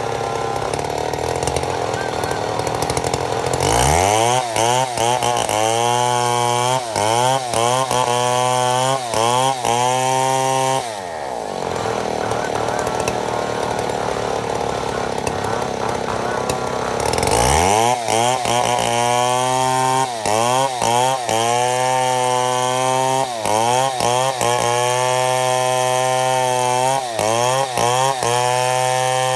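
Chainsaw running under load while milling a mahogany log into slabs. For long stretches its pitch dips and climbs back over and over, about once or twice a second, with a steadier, noisier stretch in the middle.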